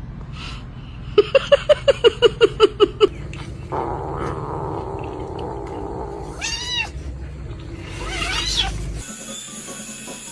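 Domestic cat vocalising: a quick run of about a dozen short calls, then two longer meows, each rising and falling in pitch.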